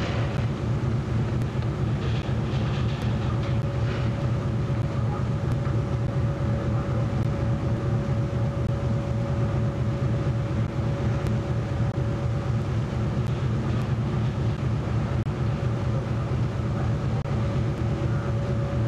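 Steady low drone of a ship's machinery under way, with a constant hum held through it.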